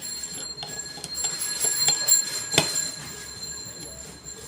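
Small metal clicks and clinks from handling a hair trimmer's spring and screws during reassembly, busiest in the middle, with one sharp click about two and a half seconds in. A faint steady high whine sits underneath.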